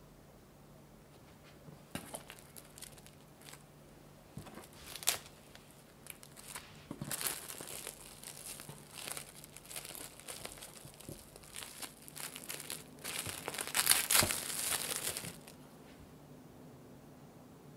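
Plastic cling film crinkling as hands wrap a sandwich tightly in it, in irregular bursts from about two seconds in. The crinkling is loudest near the end, then stops.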